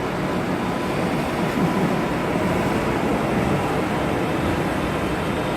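Steady rumbling noise with no distinct events.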